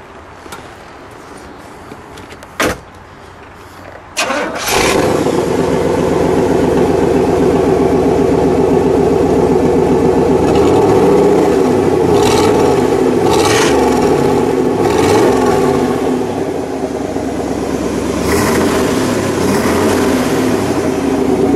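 A click, then about four seconds in the 1966 Pontiac GTO's 389 V8 fires up through open side-exit exhaust pipes and runs loud and steady at idle, its speed wavering a little.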